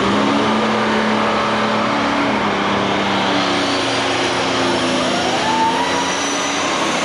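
International Harvester super stock pulling tractor's turbocharged engine running flat out under load as it drags the weight sled. The engine note holds steady, then climbs about five seconds in, with a high whine rising near the end.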